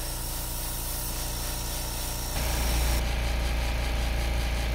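Makita MAC320Q Quiet Series portable air compressor switched on and running with a steady motor-and-pump hum, growing a little louder just past halfway.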